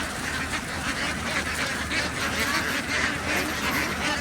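A large flock of domestic ducks quacking constantly, with many calls overlapping into one continuous din.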